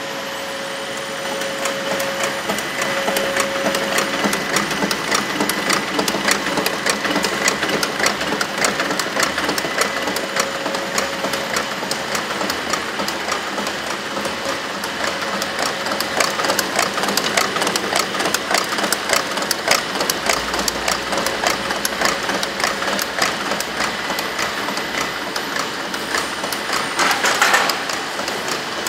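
Rose confectionery wrapping machine running, a dense, rapid and steady mechanical clatter of its moving parts that picks up about a second in. A brief louder rush of noise comes near the end.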